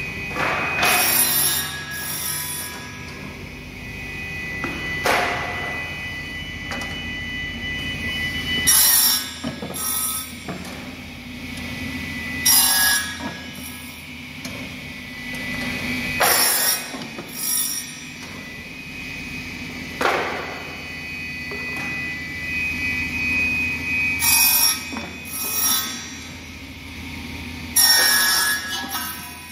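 Pallet board ripping machine running: its circular saw and chain conveyor whine and hum steadily while pallet boards are fed through the blade. Each cut is a short burst of sawing, mostly in pairs about a second apart, every few seconds, with a few sharp knocks of wood among them.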